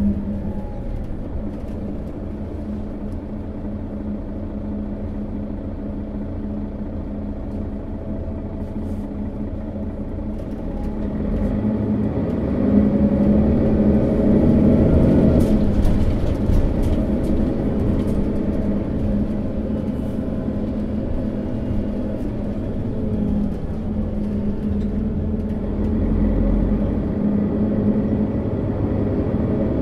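Setra S415 NF city bus's diesel engine idling while the bus stands still, a steady low hum that swells louder for several seconds about halfway through.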